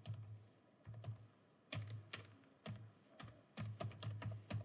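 Typing on a computer keyboard: short irregular runs of key clicks with brief pauses between them.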